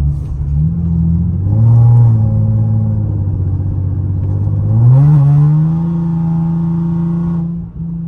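Infiniti G37's 3.7-litre V6, fitted with aftermarket test pipes, accelerating under load. Its pitch rises, falls back and rises again, loudest about two and five seconds in.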